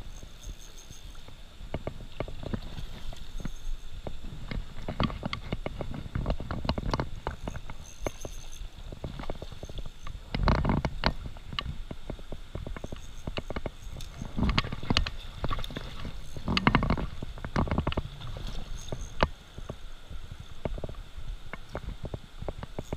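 Water splashing and sloshing in bursts as a hooked trout thrashes at the surface near a landing net, over a low rumble with many small knocks of handling on the camera.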